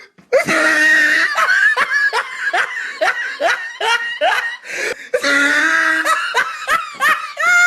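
A person laughing hard: a long run of quick 'ha' bursts, about three a second, with a drawn-out stretch a little past the middle.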